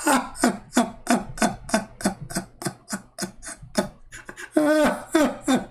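A man's voice making quick, evenly repeated short sounds, about four a second, with one longer voiced stretch near the end.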